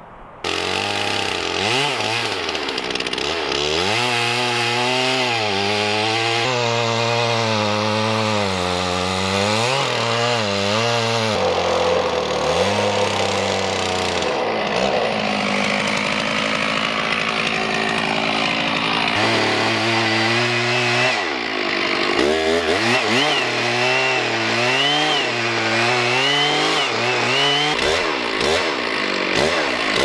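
Gas chainsaw cutting into a large cedar log, trimming it to fit through a sawmill; the engine's pitch rises and falls as the load changes. It starts abruptly about half a second in.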